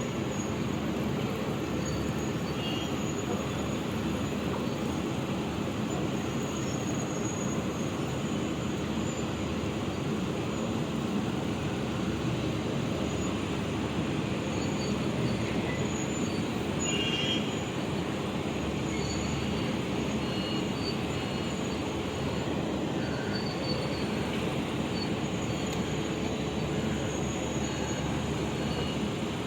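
Heavy mining machinery working steadily: a Sany 500 excavator's diesel engine and hydraulics running as it loads a Scania dump truck, with a few brief high squeaks.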